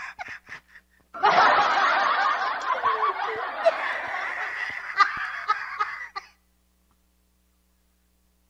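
A woman laughing hard, starting about a second in and stopping abruptly about six seconds in.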